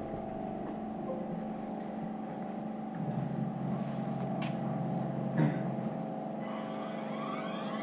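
CNC machine humming steadily with several held tones, with a few faint clicks. From about six and a half seconds in, rising whines start, as the machine begins its gasket-cutting run.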